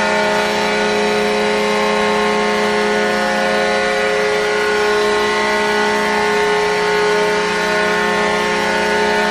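Goal horn sounding one long, steady blast.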